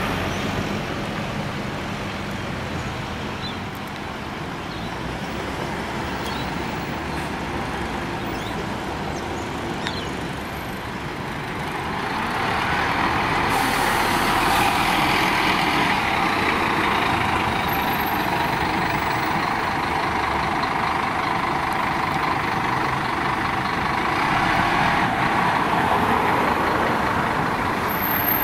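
City bus engine and tyre noise, growing louder about twelve seconds in as the bus drives past close by, then carrying on as it pulls away. A brief hiss comes as it passes.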